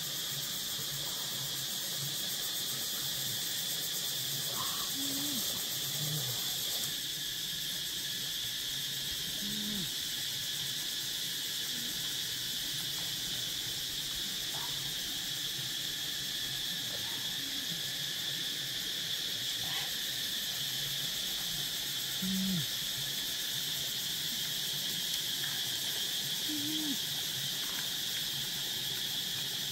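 Steady, high-pitched drone of forest insects. Short low sounds come and go every few seconds.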